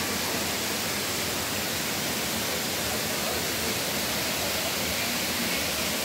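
Waterfall's falling water making a steady, even rush.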